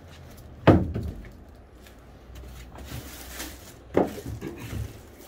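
Packing being pulled off a computer case on a table: two dull knocks about three seconds apart, the first the louder, with a light rustle of the plastic bag between them.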